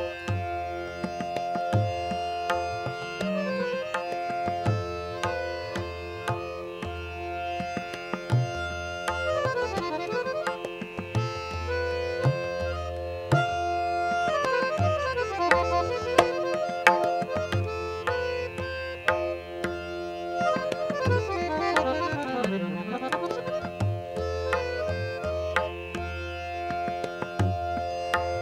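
Harmonium playing raag Champakali, holding notes and breaking into fast runs that sweep down and back up several times, with tabla accompaniment in matta taal: sharp strokes on the right-hand drum over regular low bass strokes from the bayan.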